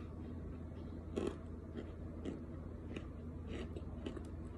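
Cornstarch crumbles being chewed with the mouth closed: irregular soft, squeaky crunches about every half second, the loudest about a second in, over a low steady hum.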